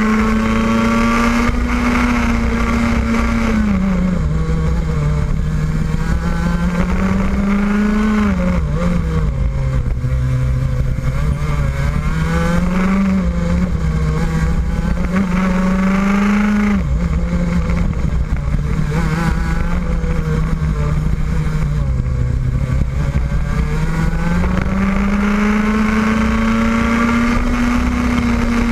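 Rotax Max 125cc single-cylinder two-stroke kart engine at racing speed, heard from on board. Its pitch climbs slowly along each straight and falls away under braking for the corners, four times, dropping most sharply about two-thirds of the way through.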